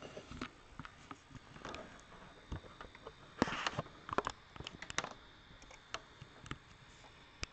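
Handling noise at close range: scattered clicks and taps with short rustles as the camera is gripped and adjusted, and a longer rustle of cotton jacket fabric about three and a half seconds in.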